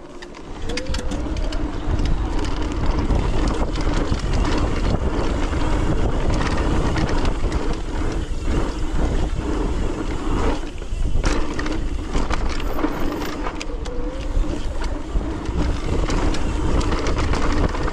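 Mountain bike descending a dirt singletrack, heard from a handlebar-mounted camera. Wind buffets the microphone over a steady tyre rumble and hum. Frequent short rattles and clacks come from the bike going over bumps.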